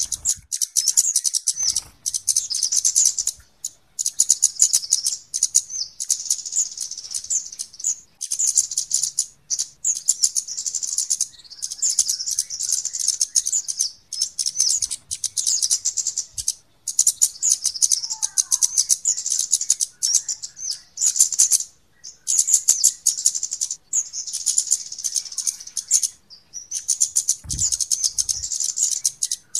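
Flowerpecker lure calls: rapid, high-pitched ticking chirps in near-continuous runs, broken by short gaps every few seconds.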